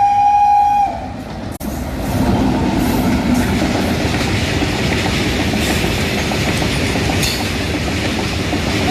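WAG-9 electric locomotive's air horn holds one steady note and stops about a second in. Then comes the steady noise of a goods train running on the rails, with a couple of sharp clanks.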